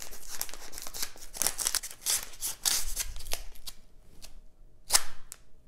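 Chef's knife slicing through the paper of an envelope, slitting it open: a run of scratchy paper-cutting noise for about three and a half seconds, then a few separate ticks and a sharper snap about five seconds in.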